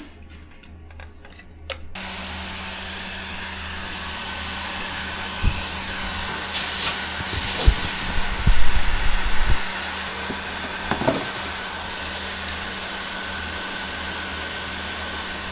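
A hot air gun switches on about two seconds in and blows steadily with a hiss and a low hum, heating the engine control module's circuit board to desolder its EEPROM chip. A short run of knocks and clatter in the middle is the loudest part.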